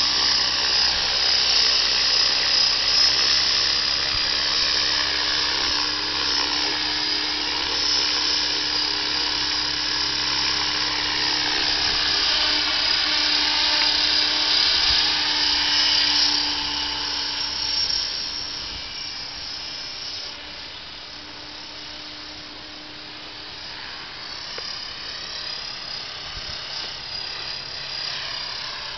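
Blade 550X electric RC helicopter in flight: a high whine from its motor and rotor, its pitch bending up and down as it manoeuvres. It gets quieter about 18 seconds in as it flies farther off.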